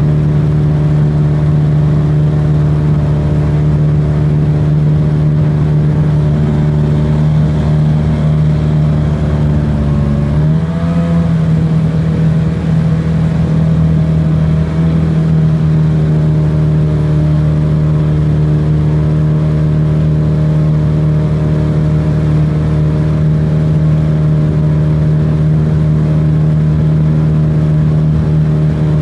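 Mercury Mark 28 two-stroke racing outboard driving a small hydroplane, heard close from the cockpit, running steadily under way. About ten seconds in its pitch briefly dips and comes back up, then it holds steady again.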